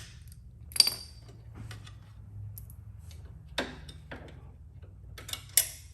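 Sharp metallic clinks of hand tools and bolts being handled while a motorcycle floorboard is unbolted. One clink rings about a second in, a single one follows at about three and a half seconds, and a few come close together near the end.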